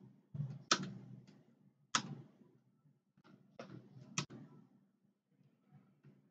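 Isolated computer keyboard key presses: a few sharp clicks spaced a second or two apart, with softer taps between them.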